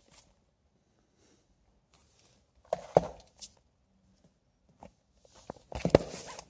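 Comic books being handled and laid out: a single knock about three seconds in, then about a second of rustling and tapping near the end.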